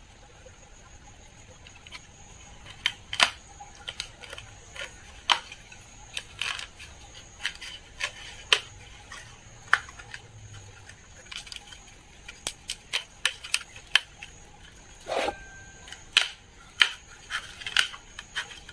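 Irregular sharp clicks and taps of hands handling a 15-inch speaker's metal basket while pressing a freshly glued spider (damper) into place around the voice coil. A faint steady high whine runs underneath.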